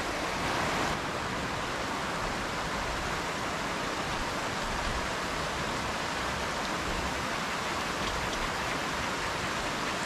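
Mountain stream rushing over rocks: a steady, unbroken wash of water.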